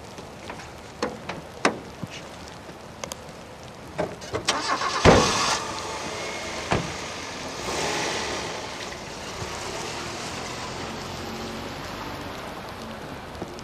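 A series of sharp bangs over the first five seconds, the loudest about five seconds in. Then a car drives off past the camera, its engine and tyres on the wet road swelling and easing into a steady hiss.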